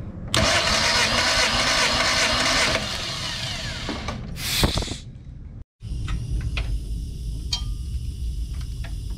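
Compressed air hissing out of a hand-held cylinder compression tester as its release valve is opened, dumping the reading taken on cylinder four. The hiss starts suddenly about half a second in and lasts about two and a half seconds, with a shorter, high hiss a little later. After that comes a steady low hum with scattered light clicks.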